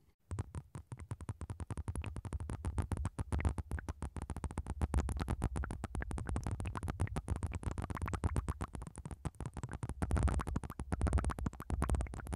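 Plastic syringes filled with blue liquid, worked with their tips at the ears of a binaural microphone: a dense, fast crackle of wet clicks, starting just after a brief silence.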